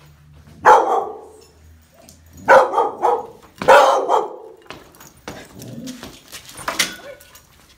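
A fearful dog on a leash barking: three loud barks in the first half, the last two close together. After that come quieter clicks and scuffles as it moves about on the wood floor.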